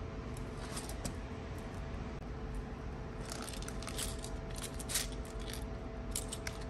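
Small metal nail charms and rhinestones rattling and clicking inside a clear plastic compartment box as it is handled, in short clusters of sharp clicks, over a faint steady hum.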